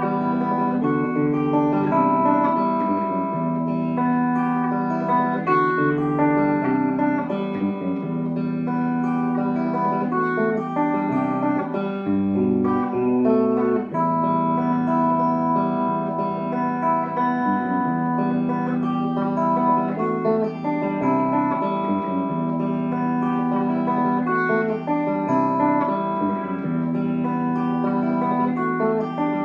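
Tenson Stratocaster-style electric guitar played with picked chords and single notes that ring on, the notes changing every second or two.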